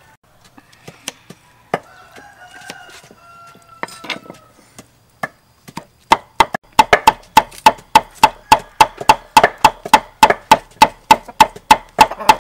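Cleaver chopping soaked dried red chillies on a wooden chopping board: rapid, even strikes about four a second, starting about halfway through, after a few seconds of quieter handling sounds.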